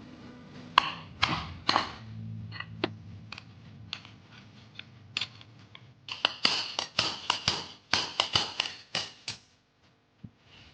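Hammer tapping on a bearing being driven into a scooter's rear gear case. A few spaced taps come first, then a quick run of about a dozen blows, roughly three or four a second.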